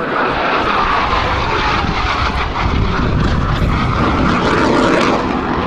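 Jet noise from a U.S. Navy Blue Angels F/A-18 Hornet's twin General Electric F404 turbofans as the jet flies past. A whine falls in pitch over the first two seconds or so, over loud, steady engine noise that swells slightly about five seconds in.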